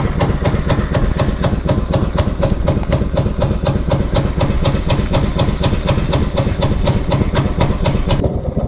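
Small gasoline engine of a go-kart running close by, with a steady chugging pulse of about five or six beats a second. It loses some of its hiss near the end.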